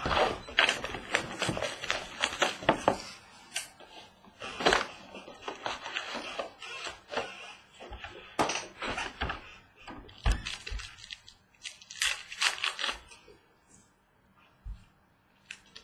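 Hands opening a sealed cardboard box of trading cards and handling the foil packs inside: a run of crinkles, rustles, clicks and taps, busiest at the start and again twice midway, dying away near the end.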